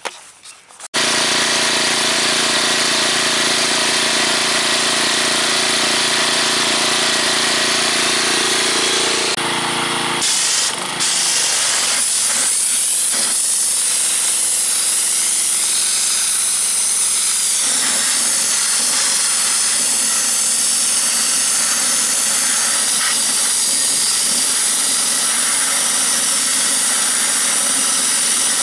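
Gasoline pressure washer's engine and pump running steadily while a 3/8 inch wet sandblasting nozzle sprays a high-pressure stream of water and sand against a rusty brake drum, a loud steady hiss over an engine hum. It starts abruptly about a second in, dips and stutters briefly around ten seconds in, then the spray hiss comes back stronger while the engine hum fades under it.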